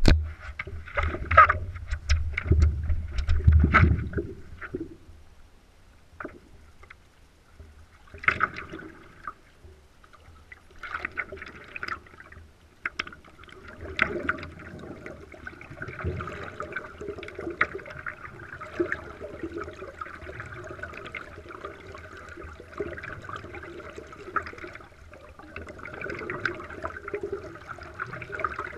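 Water lapping and splashing around a stand-up paddleboard gliding on a calm river, with paddle strokes dipping in the water. The first few seconds hold a few loud, low thumps.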